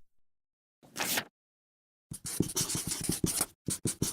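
Scratchy, rustling noise: a short burst about a second in, then a run of rapid clicks and scratches with a brief break near the end.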